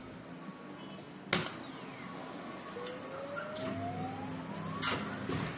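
Claw crane arcade machine: a sharp click, then an electronic tone rising steadily for about two seconds, with a couple more clicks near the end, over a steady low machine hum.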